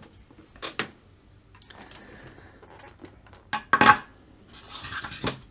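Clicks and clatter of small hard tools and parts being handled on a workbench during soldering work, with a sharp knock a little under four seconds in as the loudest, then a short rustle near the end.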